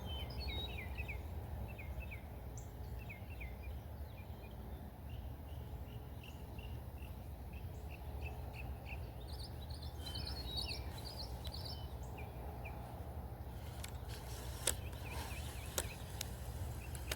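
Small birds calling in a series of short, quick chirps over steady low outdoor background noise, with a few sharp clicks near the end.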